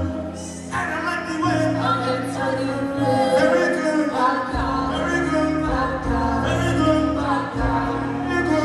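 Live pop music: a sung vocal melody over a backing band or track with a deep bass line.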